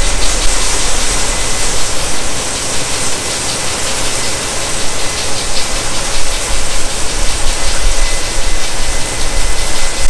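Case IH Magnum tractor's diesel engine running steadily under load as its Kinze grain cart auger unloads shelled corn into a semi's grain trailer, with a loud, steady hiss of grain pouring over a low rumble.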